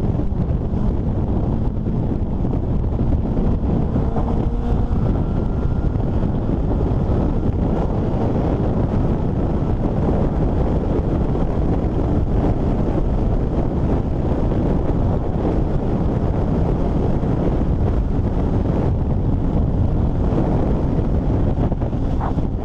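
Steady, heavy wind rush on a helmet-mounted camera's microphone while riding a Honda CBR600RR sport bike at highway speed. A faint rising whine comes through about four seconds in.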